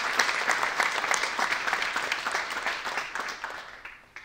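Small audience applauding, the clapping fading and dying away near the end.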